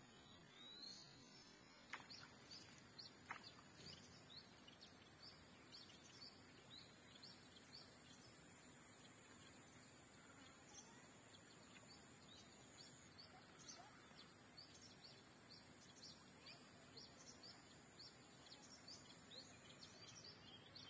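Quiet outdoor ambience: faint, short rising bird chirps repeated many times over a steady high hiss, with two faint clicks about two and three seconds in.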